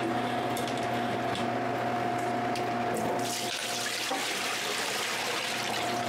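Water poured from a paint can into a sink, the splashing growing stronger about halfway through, over a steady hum.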